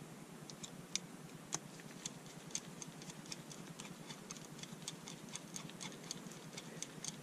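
Faint, irregular light ticks, about four a second, as a screwdriver turns the pilot jet into a Mikuni VM22 carburetor body.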